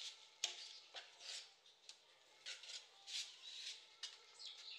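Trowel scraping mortar from a bucket and spreading it across the back of a wall tile: a run of short gritty scrapes with a few sharp clicks of the blade.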